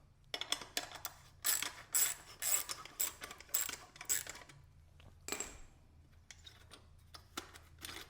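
Ratchet wrench clicking in short, irregular runs as it loosens the bolt of the exhaust end clamp. The clicking is busiest in the first five seconds, then thins to scattered faint clicks.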